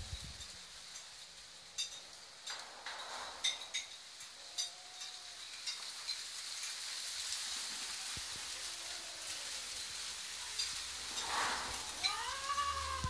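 Cats mating, with a couple of faint low moans and then, near the end, a louder drawn-out yowl that rises and falls, under a steady crackly hiss with scattered clicks.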